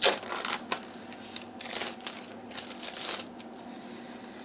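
Hands handling a tarot deck and its box: a series of short rustles and light scrapes of card and cardboard, the loudest right at the start.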